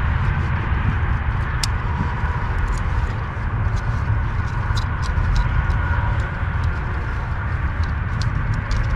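Light clicks and ticks of hands handling a plastic feed tube and zip tie in a car's engine bay, scattered all through, over a steady low rumble.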